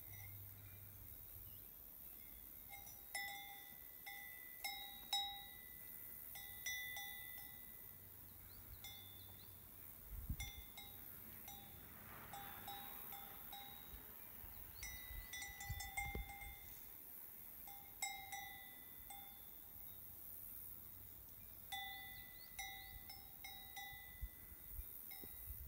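Cowbells on grazing cows clanking irregularly as the animals move, in scattered clusters of short ringing strokes. A few low thumps on the microphone come around the middle.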